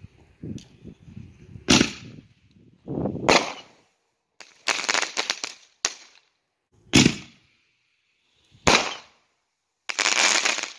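1.5-inch ball shells fired one after another from an HDPE mortar-tube rack: about seven sharp, loud reports from the lift charges and shell breaks, with a longer burst of noise about ten seconds in.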